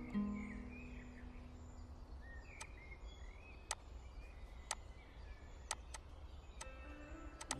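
Background music fades out in the first second, leaving faint bird chirps over a low steady noise. Single sharp clicks come about a second apart, then a quick run of them near the end.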